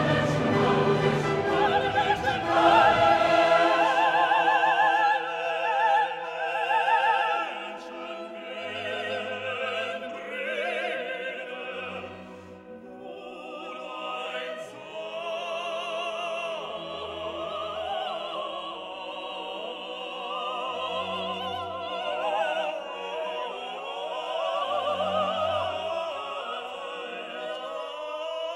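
Background classical music: operatic singing over an orchestra, quieter from about eight seconds in.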